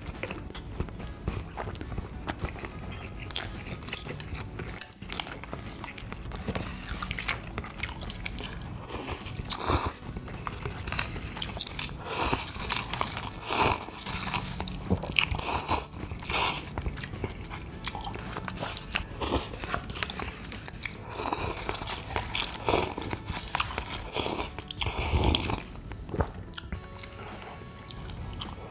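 A person biting and chewing food, with irregular crunches and mouth clicks that come in clusters.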